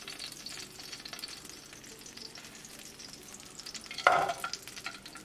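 Leftover oil sizzling and crackling faintly in a hot nonstick frying pan as a pan-fried salmon fillet is lifted out with a metal spatula. About four seconds in there is a brief, sharp clatter as the fillet is set down on a ceramic plate.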